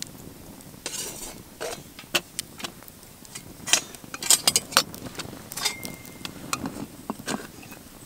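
Metal cookware clinking and knocking as pots are hung on and shifted along a steel crossbar over a small wood fire. The knocks come in quick irregular clusters, and one short metallic ring sounds about two-thirds of the way in.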